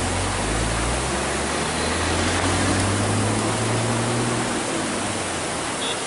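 Waterfall rushing: a steady, even noise of water falling over rock. A faint low hum lies underneath for the first four seconds or so.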